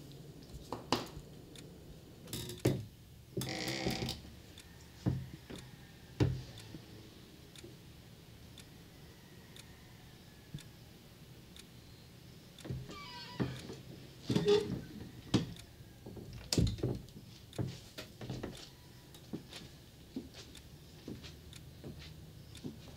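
Scattered soft knocks and clicks in a quiet room, with a brief rustling hiss about four seconds in and a denser run of knocks later on.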